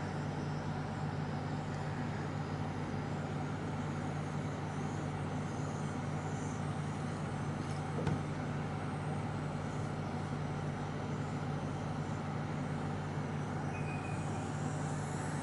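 Steady low hum with an even hiss, unchanging throughout, and a faint click about eight seconds in.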